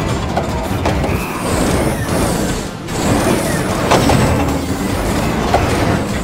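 Cartoon soundtrack: vehicle engine sound effects with a few high sweeping whooshes, over background music.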